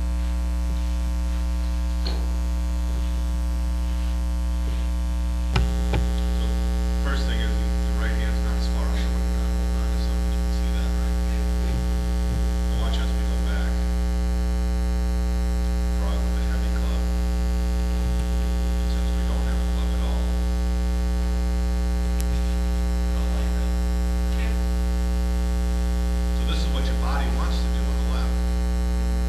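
Steady electrical mains hum with a stack of overtones, unchanging throughout, with a faint knock about six seconds in.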